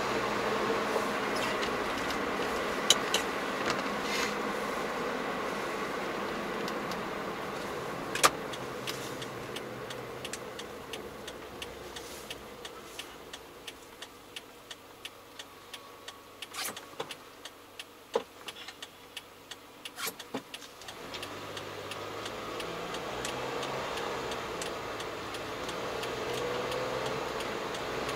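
Car cabin noise of engine and tyres while driving. It fades as the car slows to a near stop, with a regular ticking about twice a second, then rises again with the engine pitch climbing as the car pulls away.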